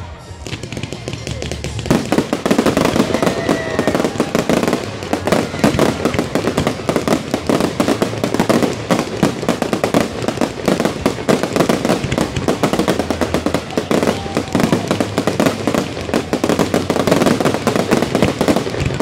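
Fireworks display in a rapid barrage: many aerial shells bursting in quick succession, a dense run of bangs and crackling that swells about two seconds in and keeps going.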